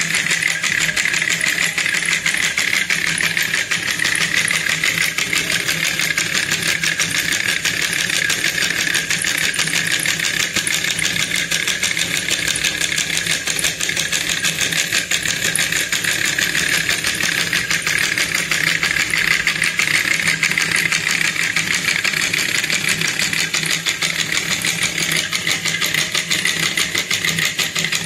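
Small homemade solenoid engine running at a steady speed: a fast, even clicking rattle from the solenoid's plunger and crank on every stroke.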